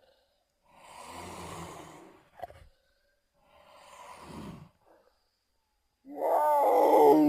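Cougar (mountain lion) vocalising: two short breathy sounds, then a loud pitched growling cry about six seconds in whose pitch bends up and down.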